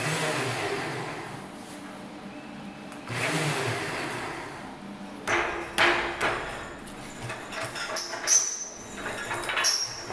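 Two bursts of hissing air, each starting suddenly and fading away, then a string of sharp metallic clanks and knocks with a bright ring, as of steel plate pieces being knocked about.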